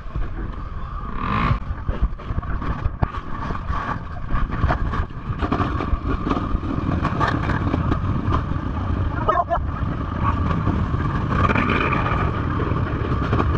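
Dirt bike engine running at low revs, with frequent knocks and rattles.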